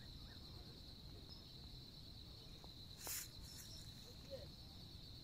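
A steady, high-pitched insect chorus, one unbroken buzzing note. A brief burst of noise about three seconds in.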